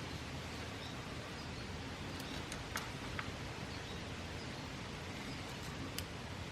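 Faint steady background hiss with a few light clicks scattered through it, a handful in the middle and one near the end.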